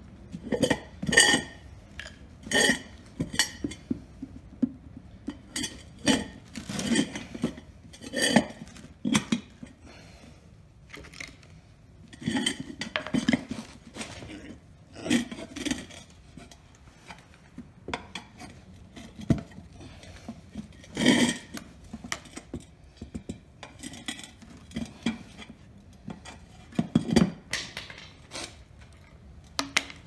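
Steel tire iron clinking and scraping against a lawn tractor wheel rim as the tire bead is pried onto the rim a little at a time: irregular metallic clinks and knocks, many with a short ring.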